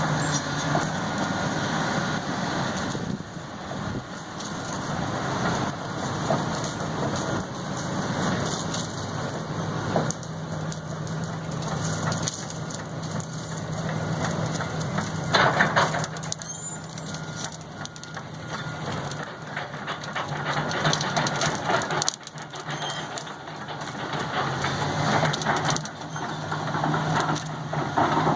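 Backhoe engine running steadily, under dense, irregular crackling and crunching.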